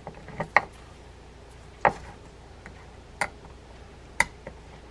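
A handful of small, sharp metallic clicks spaced irregularly about a second apart: reel drag and tension washers tapping against the main gear as they are worked off it by hand.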